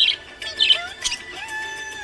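Budgerigars chirping: a few quick bursts of high chirps with short rising whistled notes between them, over longer held tones.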